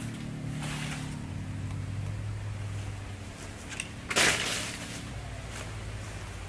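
A dead tree branch is dropped onto the ground about four seconds in, giving one short crash with crackling. A low steady hum runs underneath.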